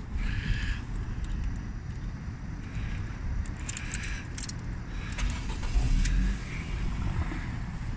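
The 1.6 petrol four-cylinder engine of a 2014 Ford Mondeo idling quietly, a steady low rumble, with a brief louder low surge about six seconds in. Light clicks and jingling come from the cabin as well.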